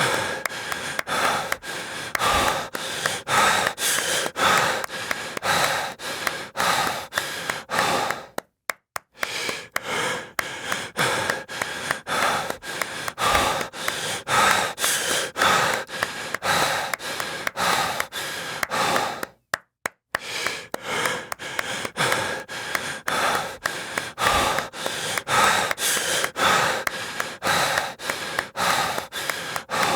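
Heavy breathing over quick, regular claps, about two to three a second. The pattern drops out twice for a moment and starts again.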